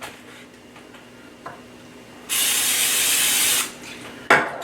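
Aerosol can of cooking spray giving one steady hiss of about a second and a half, followed by a short sharp knock near the end.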